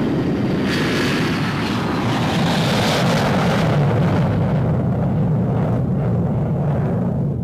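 Jet aircraft passing by: a loud, steady rush of engine noise whose high hiss swells over the first few seconds and then eases off, over a steady low rumble.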